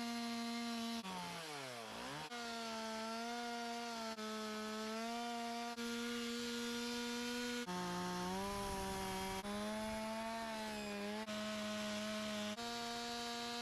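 A two-stroke chainsaw running at high revs while carving wood, in a series of short clips joined by abrupt cuts. About a second in, the engine drops off and climbs back up, and in the middle the pitch sits a little lower, as when the chain is in the wood.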